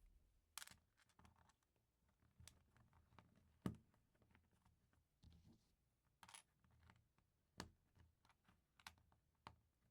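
Plastic LEGO pieces being handled and pressed together: scattered light clicks and taps, the sharpest about three and a half seconds in.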